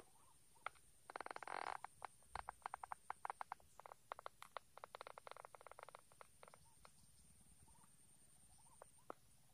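Frog calling faintly from the swamp edge: rapid trains of clicks, a dense burst about a second in, then a longer run of quick clicks that dies away about six and a half seconds in.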